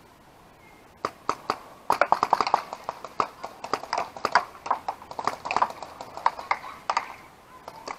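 Paintball gunfire: rapid sharp pops in quick volleys of several shots each, starting about a second in and going on in bursts.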